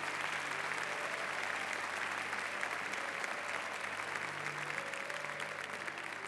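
A large congregation applauding steadily in encouragement, the clapping easing off slightly near the end.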